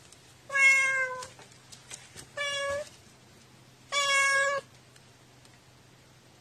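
Cat meowing three times, each call under a second long, the first the longest and dropping slightly at its end. These are a housecat's insistent calls at a closed door at night.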